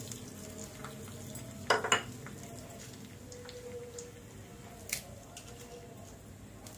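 Cumin and mustard seeds sizzling in hot oil in a kadai as they fry for a tempering, with two sharp knocks of kitchenware about two seconds in and a single click about five seconds in.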